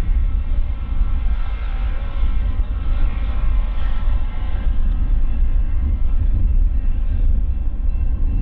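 Steady low rumble of the LORAM switch rail grinder's diesel power units running as the machine moves along the track.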